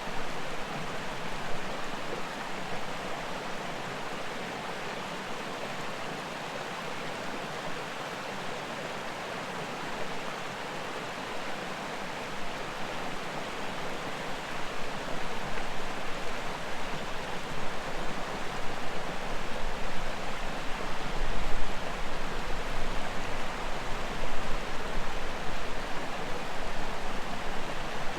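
Steady rush of a mountain creek and its waterfall. The water grows louder and more uneven from about halfway through.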